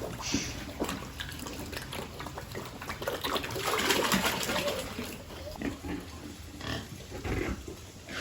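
Piglets making a string of short, irregular grunts and snuffling noises.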